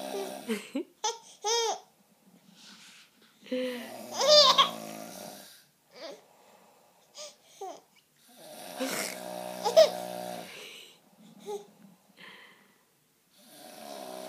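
A man snoring, one long snore roughly every four to five seconds, with a small child's giggles and babbling in between and over the snores.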